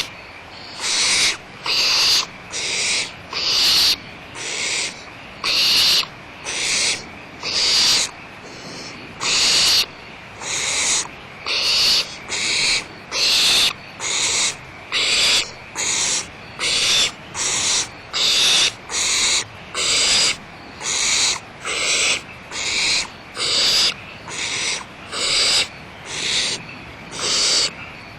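Barn owls giving rasping hiss calls over and over, about one a second, each about half a second long.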